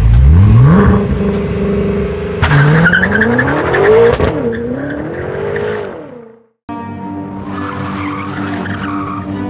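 A BMW M6's twin-turbo 4.4-litre V8 revs up sharply and holds, then pulls hard again with tyres squealing, its pitch rising and wavering as the car slides. The engine sound fades out about six seconds in, and a music track with a steady beat follows.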